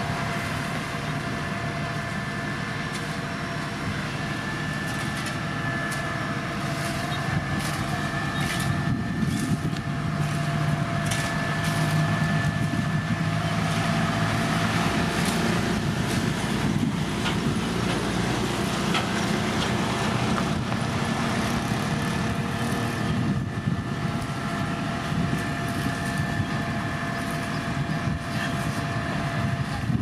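Heavy diesel road-construction machinery running steadily: a low engine hum with a thin steady whine above it, and scattered knocks and clatter in the first half.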